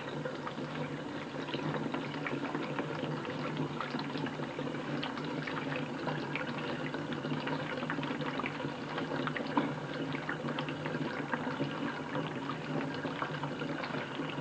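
Razor scraping through lather and hair on a scalp, close up: a steady crackling rasp made of many small ticks, over a low steady hum.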